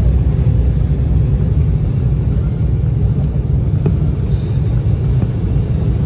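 Steady low rumble of an airliner cabin in cruise flight: engine and airflow noise heard from inside the plane.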